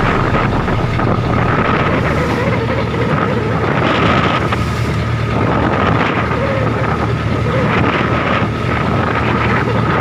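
A traditional fishing trawler's engine running steadily under way, with wind buffeting the microphone and waves rushing and splashing along the hull in swells.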